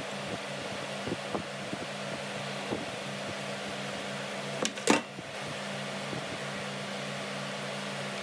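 Steady machine hum like a fan or appliance, with light scattered ticks of a plastic bottle and silicone mold being handled, and one sharp knock about five seconds in.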